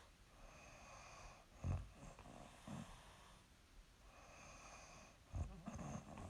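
A sleeping young woman snoring: two short snores about four seconds apart, each followed by a weaker one, with soft breathing between them.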